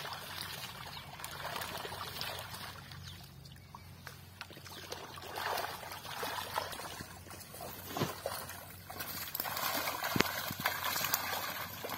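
Pond water splashing and trickling as a drag net is hauled in, with fish thrashing in the gathered mesh. Sharp splashes stand out near the end.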